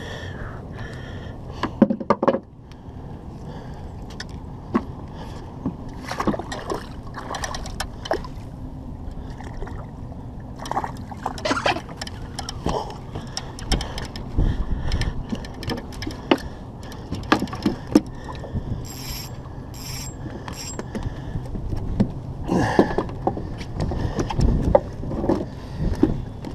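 Irregular knocks, clicks and splashes as a fish is netted at the side of a small boat and lifted aboard, over a steady low rumble.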